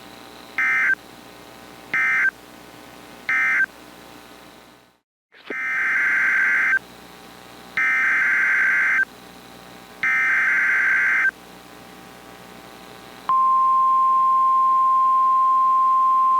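Emergency Alert System SAME data tones: three short buzzing bursts of the end-of-message code, a brief break, then three longer header bursts announcing the next warning. About thirteen seconds in, the steady single-pitch NOAA Weather Radio 1050 Hz warning alarm tone begins and holds.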